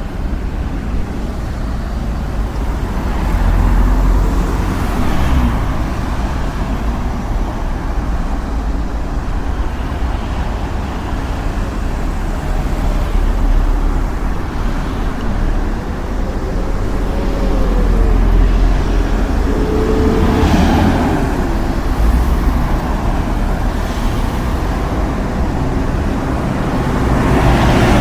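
Street traffic: a steady low rumble of road vehicles. Several pass close by, about four seconds in, near twenty seconds and again at the end, with engine notes gliding in pitch as they go by.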